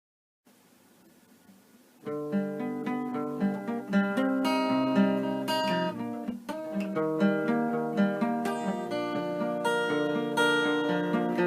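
Strummed acoustic guitar music, starting about two seconds in after a faint hiss.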